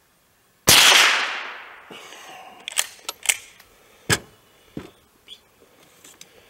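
A single .22 LR rifle shot from an FN Browning Trombone pump-action, with a long fading echo, followed by a few sharp metallic clicks as the pump action is worked.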